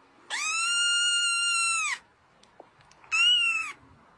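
A kitten meowing twice: a long, high-pitched meow that rises at the start and drops away at the end, then about a second later a shorter meow that rises and falls.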